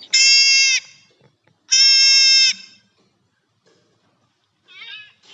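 Recorded animal calls played back: two loud calls of steady pitch, each under a second long, at the start and about a second and a half later, then a fainter, wavering call near the end.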